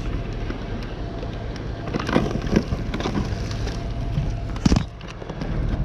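Junk being handled and rummaged through: a few scattered knocks and clatters, the loudest about three-quarters of the way through, over a steady low hum.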